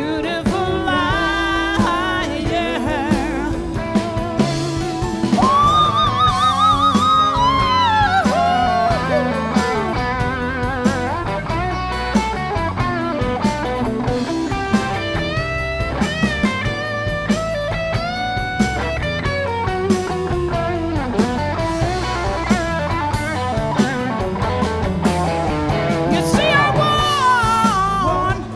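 A woman singing lead over a live band of electric guitar, electric bass, keyboard and drums, holding long notes with a wide vibrato.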